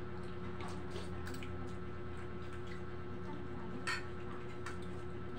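Steady electric hum, most likely the wall fan's motor, with scattered soft clicks and wet squishing sounds of people eating with their hands from plates; a sharper click about four seconds in.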